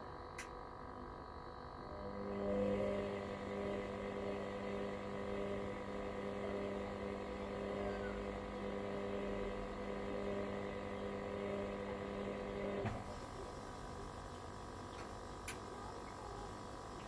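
Hoover washer-dryer running: a steady motor hum starts about two seconds in, holds an even pitch for about eleven seconds, and cuts off with a click. A faint constant electrical hum continues underneath.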